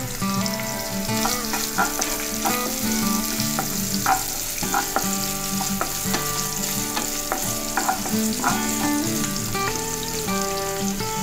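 Sliced onions and carrot sticks sizzling in hot oil in a frying pan, stirred with a wooden spatula that now and then scrapes and knocks against the pan.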